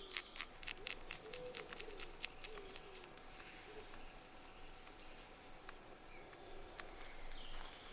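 A flint blade scraping horse's hoof fungus into fluffy tinder fibres: a run of quiet, scratchy strokes, thickest in the first few seconds. Woodland birds call faintly in the background.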